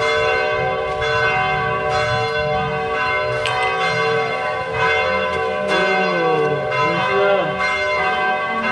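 Church bells ringing, struck over and over about once a second, their tones ringing on and overlapping.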